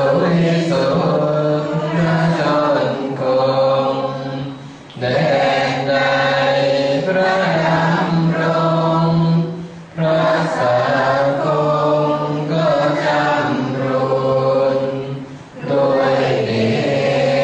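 A group of Thai Buddhist laymen and laywomen chanting in unison in the sarabhanya style, a melodic sung recitation. Here they chant the verses of homage to the Phra Buddha Sihing image. The chant runs in long held phrases of about five seconds, with brief breath pauses three times.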